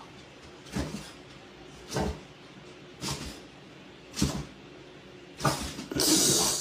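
A dog making short, breathy huffs about once a second, five in all, then a louder burst of hiss near the end.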